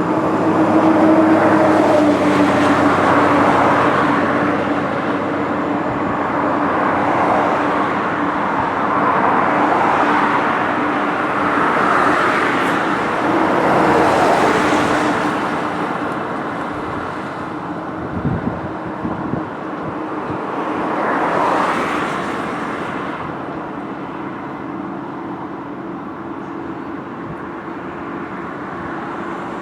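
Road traffic passing on a bridge: vehicles go by one after another, the noise swelling and fading every few seconds over a steady hum.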